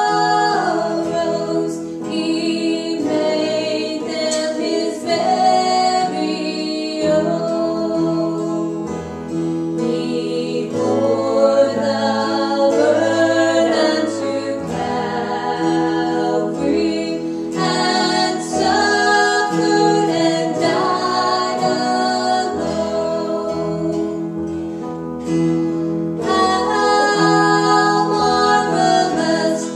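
Women singing a slow hymn to strummed acoustic guitar, with held chords underneath.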